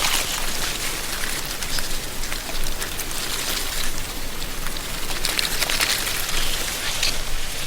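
Wind rustling the dry autumn leaves of a tree canopy: a steady high hiss full of small leaf crackles, swelling a little now and then.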